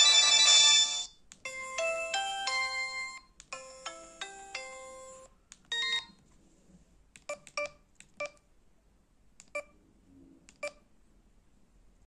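LG G5410 mobile phone's built-in message tones previewing through its small speaker. The first is a dense fanfare chord that cuts off about a second in, followed by two short melodic runs of stepped notes and a brief blip. Then come several short, quiet beeps, single and paired, from the keypad as the menu is left.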